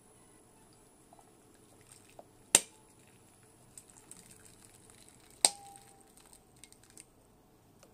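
Hot water poured faintly into a ceramic bowl, broken by two sharp clinks about three seconds apart; the second rings briefly.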